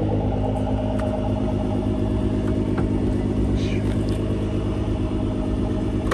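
2014 Nissan GTR's twin-turbo 3.8-litre V6 idling steadily through an aftermarket exhaust, with a couple of light clicks.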